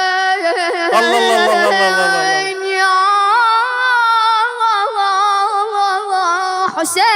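A solo singer holding one long, ornamented note in an Iraqi Husayni lament (latmiya), its pitch wavering and bending. The voice carries no audible accompaniment.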